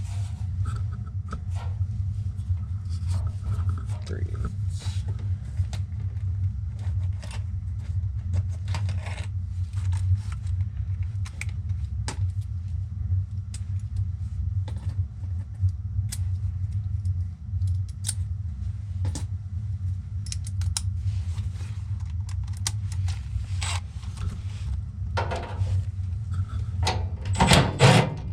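Scattered metallic clicks, jingles and knocks of hand tools and metal parts being handled, with a denser stretch of scraping and knocking near the end, over a steady low hum.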